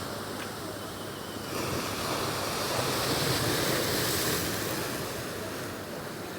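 Sea surf breaking on the shore: a steady wash, with a wave surging louder about a second and a half in and easing off near the end.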